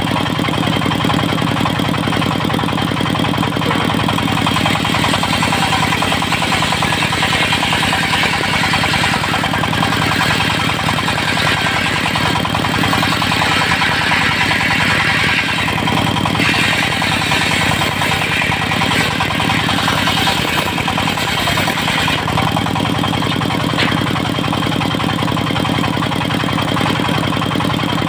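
Dongfeng diesel engine running steadily, driving a circular sawmill. From about a third of the way in until about three-quarters through, a higher rasping hiss of the saw blade cutting through teak joins the engine note.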